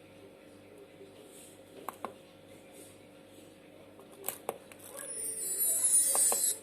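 Faint steady hum with a few pairs of sharp clicks, then a loud high-pitched hiss that swells for about a second and a half and cuts off suddenly.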